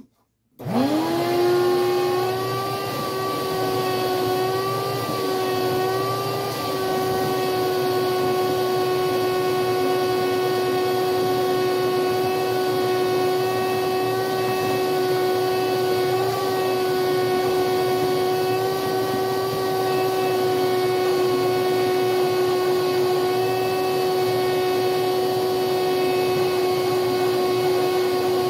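Vacuum cleaner switched on about half a second in, its motor spinning up with a rising whine and settling into a loud, steady whine as the hose nozzle is worked over dirt-caked seat springs. The pitch wavers slightly a few times in the first several seconds, then holds steady.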